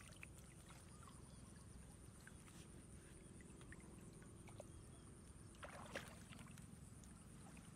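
Near silence: faint sloshing and small splashes of feet and hands in shallow muddy paddy water, with one slightly louder splash about six seconds in, over a low steady rumble and a faint high whine.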